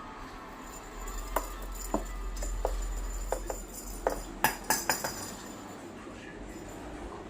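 Pet budgies knocking and pecking at hard cage toys: a run of sharp clicks and clinks, about a dozen between one and five seconds in.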